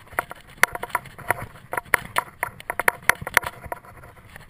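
Mountain bike rattling over bumpy grass: an irregular run of sharp clicks and clacks from the bike and its fittings, over a low rumble of tyres on turf.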